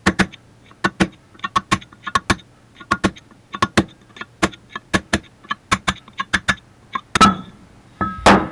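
Hammer striking a steel punch to drive dowel pins out of a backhoe swing cylinder housing: rapid metallic taps in bursts of two to four, each with a short ring, and a heavier blow about seven seconds in.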